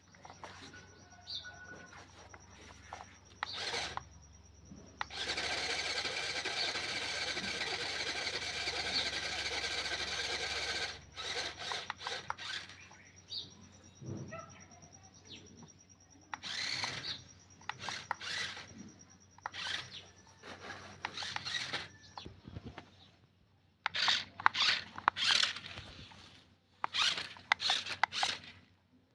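Small electric motor of a toy RC car running in short bursts, with one steady run of about six seconds in the first half.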